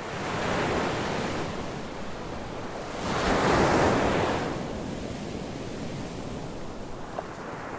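Ocean surf: a steady wash of waves, with one wave swelling loudest about three to four seconds in.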